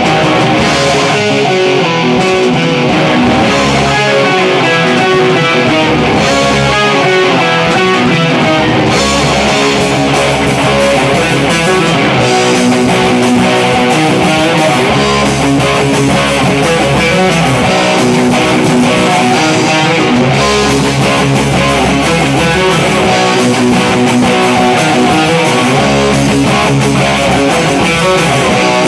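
Loud, steady guitar-led music with a bass line underneath.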